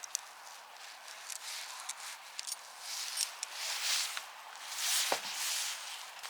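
Rustling and light clicks of hands working on bicycle parts during assembly, swelling twice in the second half, with a short sound falling in pitch about five seconds in.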